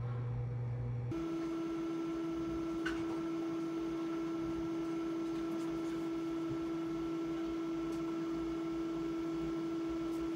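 Steady electrical hum in a quiet room. The low tone changes abruptly to a higher steady tone about a second in, and there is a faint click near three seconds.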